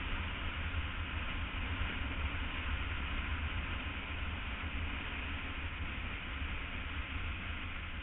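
Steady wind rush and low rumble from a BMW F800 ST motorcycle riding at road speed, with wind blowing across the on-board microphone.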